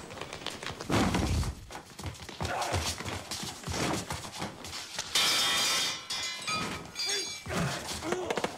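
A scuffle: heavy thuds and grunting, with a loud crash about five seconds in followed by a ringing metallic clatter.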